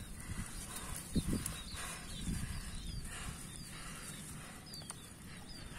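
Wet squelching and sucking of thick rice-paddy mud as bare hands dig into an eel burrow and pull out a paddy eel, loudest in a few wet swells about a second in.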